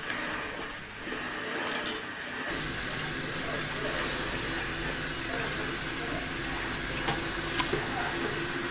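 A couple of sharp clinks of a metal spoon on a ceramic bowl, then, about two and a half seconds in, a steady sizzle starts suddenly: breaded fish pieces shallow-frying in hot oil in a pan.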